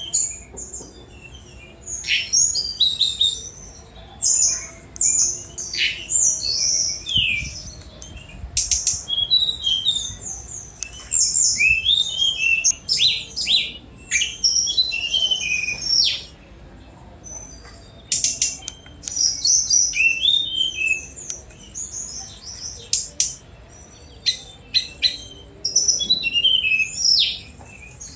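Tledekan gunung (brown-chested jungle flycatcher) singing fast, varied phrases of high chirps, slurred whistles and rapid trills, broken by short pauses.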